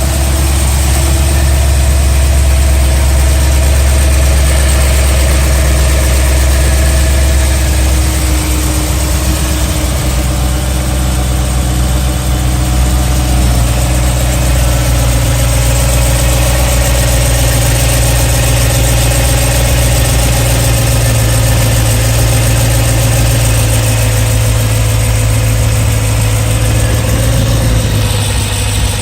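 BMW E92 M3's S65 4.0-litre V8 idling steadily, with the ticking noise that the owner reports as a fault.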